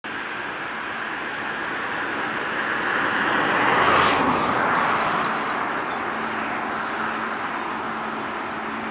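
A road vehicle passing close by: steady rushing noise that swells to a peak about four seconds in, then falls away with a drop in pitch. A small bird twitters twice during the fade.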